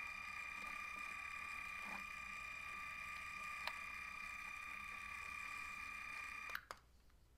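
LEGO Mindstorms 51515 record player giving off a steady high-pitched whine, with light clicks of LEGO parts. About six and a half seconds in, the whine cuts off suddenly with a couple of sharp clicks.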